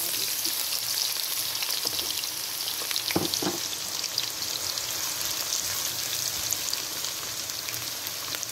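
Sliced onions sizzling and crackling in hot oil in a pan as they are stirred with a spatula, with two short knocks about three seconds in.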